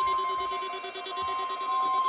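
NOAA Weather Radio 1050 Hz warning alarm tone: a single steady, unbroken beep, sounded as part of the required weekly test of the weather radio warning alarm system.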